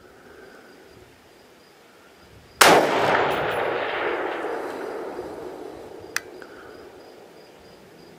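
A single scoped rifle shot about two and a half seconds in, its report trailing off in a long echo over several seconds. A small sharp click follows a few seconds later.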